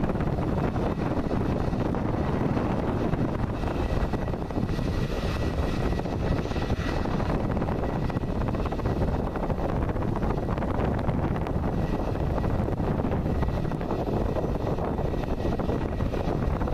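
Airbus A320 jet engines at taxi power as the airliner rolls past and turns away: a steady rumble with a faint high whine, clearest a few seconds in. Wind buffets the microphone throughout.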